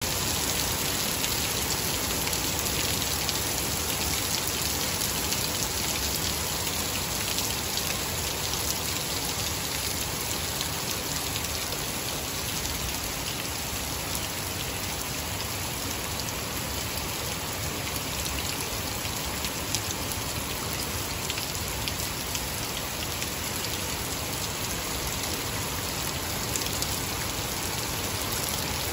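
Heavy rain pouring steadily onto grass and puddled, muddy ground: a dense, even hiss of falling water with individual drop hits, holding level throughout.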